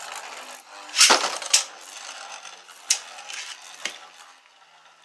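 3D-printed Beyblade spinning tops whirring in a plastic stadium, with sharp clacks as they collide, loudest about a second in and again half a second later, then weaker hits near three and four seconds as the whirr fades.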